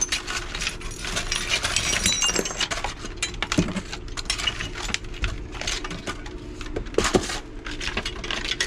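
Broken glass clinking and rattling as debris is handled and shifted, with many small knocks and clatters, and a few bright ringing clinks about two seconds in.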